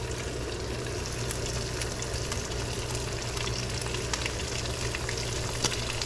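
Steady sizzling and crackling of food cooking on a hot grill, with a low steady hum underneath.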